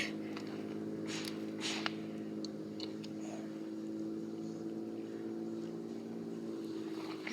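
Steady low hum made of several held tones, with a few faint clicks in the first two seconds.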